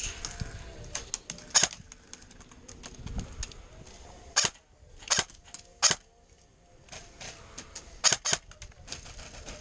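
Airsoft guns firing single shots: sharp snaps at irregular intervals, a few much louder than the rest, with a pair close together near the end.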